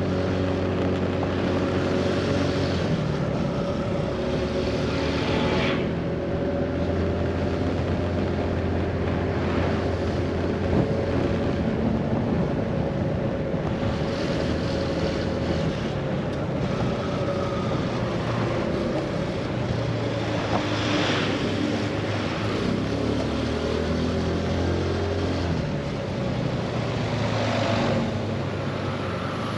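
Scooter engine running under way, with a steady hum over a haze of road and wind noise; the engine note shifts a few times as the speed changes.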